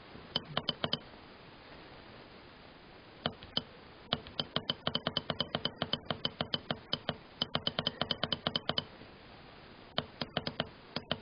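Keypad buttons of a ZW-BT1 variable-frequency drive clicking as they are pressed over and over in quick runs, about eight a second at the fastest, stepping the frequency setting toward 70 Hz.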